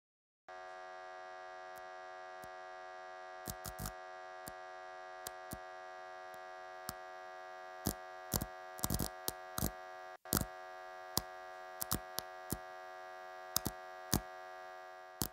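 A steady buzzing drone of several held tones, with irregular sharp clicks and crackles scattered through it, more of them in the second half. It starts about half a second in and fades out at the very end.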